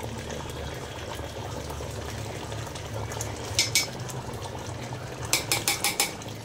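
Metal spoon clinking against a large metal cooking pot: two clinks about three and a half seconds in, then a quick run of five or six near the end, over a steady low hum.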